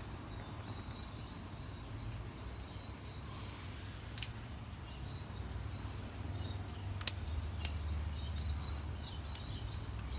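Wind buffeting the microphone as a low, uneven rumble, with faint bird chirps and two sharp clicks, about four seconds in and again about three seconds later.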